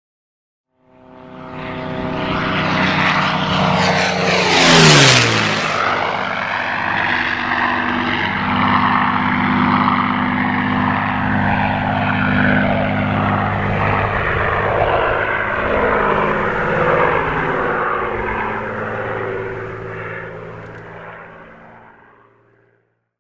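Supermarine Spitfire making a low flyby, its V12 piston engine and propeller rising in loudness as it approaches. The pitch drops sharply as it passes, about five seconds in. It then recedes on a lower, steady engine note and fades away.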